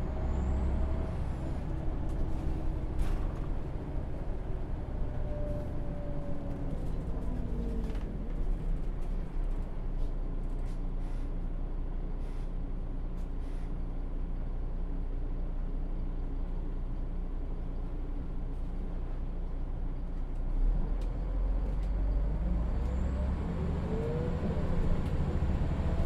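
Bus driving along, its engine giving a steady low drone. A whine slides down in pitch over the first several seconds and climbs again near the end, with a few light knocks and rattles along the way.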